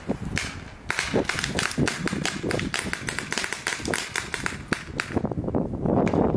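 Paintball markers firing in rapid, irregular volleys: several sharp pops a second from more than one gun.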